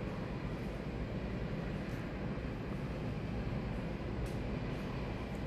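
Steady low rumble and hiss of airport background noise, with aircraft engines running at a distance.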